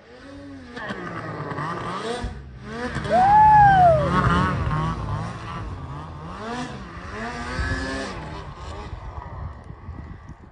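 Snowmobile engine revving hard in deep powder snow. The engine pitch climbs and drops several times, and the loudest rev comes about three seconds in.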